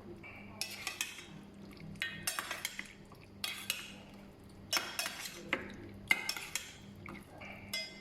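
A spoon scraping and clinking against a bowl in short bursts about every second, stirring chicken chunks through ketchup to marinate them.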